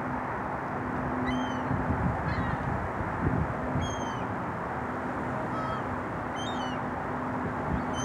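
Small birds giving short, high chirps about six times, spaced irregularly, over steady outdoor background noise with a faint low hum.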